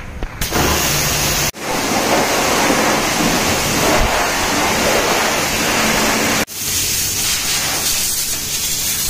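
Pressure washer spraying water onto a motorcycle: a loud, steady hiss, broken off for an instant twice. After about six and a half seconds it gives way to a duller, steadier rush with a low hum, from an air blower drying the bike.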